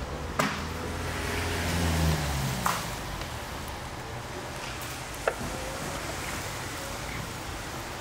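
Clicks from a Land Rover Discovery's rear seat and headrest being handled: three sharp clicks a couple of seconds apart, with a low hum that rises in pitch over the first two seconds.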